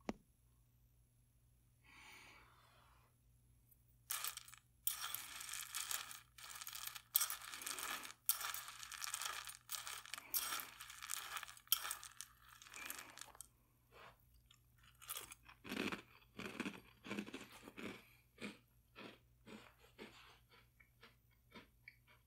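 A metal spoon stirring and pressing chocolate cereal balls in a bowl close to the microphone, the pieces crunching and rattling in dense bursts for about ten seconds, then in sparser crunches.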